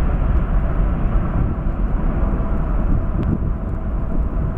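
Boeing 747-8 freighter's four GEnx-2B turbofan jet engines rumbling deeply as the plane climbs away after takeoff, slowly fading as it recedes.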